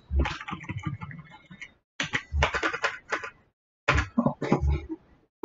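Computer keyboard typing in three short bursts of keystrokes, with brief pauses between them.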